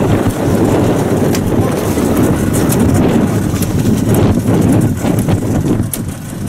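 Steady wind rumble on the microphone over a small boat's outboard motor running at sea.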